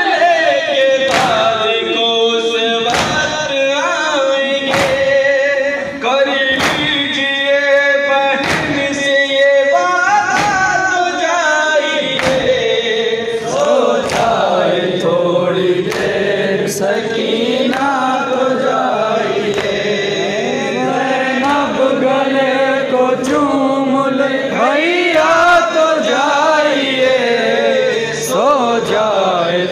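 A group of men chanting a noha together in a lament melody, with sharp rhythmic slaps about once a second during the first ten seconds, the hand strikes of matam (chest beating) keeping time with the chant; after that the slaps mostly stop while the chanting goes on.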